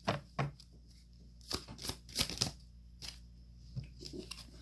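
Oracle cards being shuffled by hand: several short bursts of card noise, busiest in the middle.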